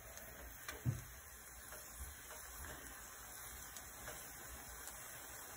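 Ghee sizzling faintly on a hot tawa under a paratha while a steel spoon spreads it, with a few light spoon ticks and a brief soft knock about a second in.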